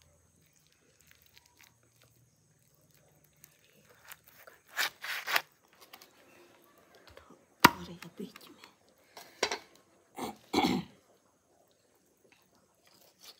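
Raw chicken being cut apart by hand on a boti, a curved blade fixed to a wooden footboard: short crunching, scraping sounds about five seconds in and a sharp knock nearly eight seconds in. Two short louder sounds follow around ten seconds in.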